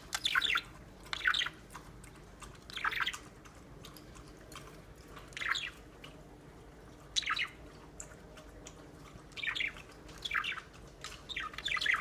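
Small pet parrot chirping in a cage: about eight short, high chirps at irregular intervals, each under half a second.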